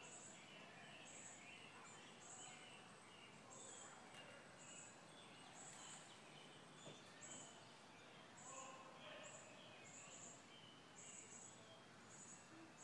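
Faint birdsong in woodland: scattered chirps from several birds, with a short, high-pitched note repeated roughly once a second, over a low background hiss.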